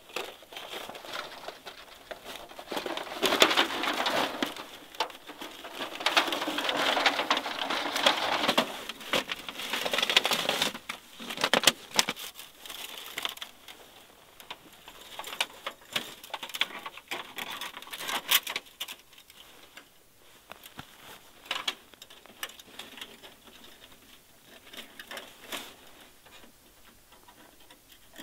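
A thin sheet-metal wood-stove pipe being handled: crinkling and rustling with light clicks, loudest in the first ten seconds or so, then sparser clicks and rustles.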